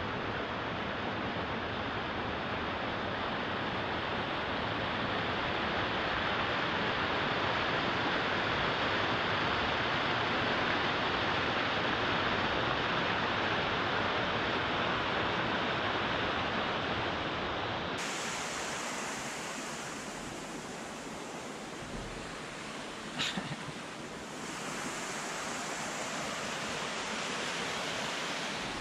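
Steady rush of flowing water, with a brief sharp sound about five seconds before the end.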